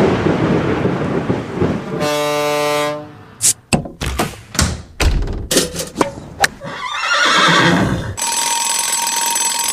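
A rapid montage of unrelated recorded sound effects. First comes a noisy rush, then a short buzzing tone, then a quick run of sharp cracks. A rushing swell follows, and near the end a steady alarm-like ringing tone.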